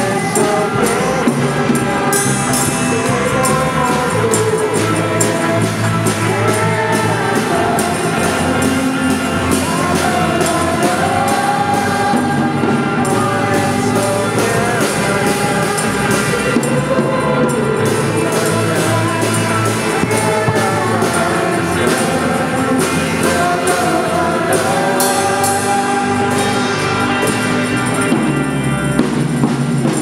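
Live worship band playing: singing voices over electric bass and a drum kit with cymbals, keeping a steady beat.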